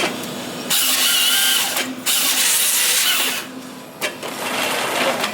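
Forestry harvester processing a felled stem into 4-metre logs. Its engine runs steadily under two loud bursts of about a second each, the first about a second in and the second about two seconds in, each with a high whine, as the head works the log.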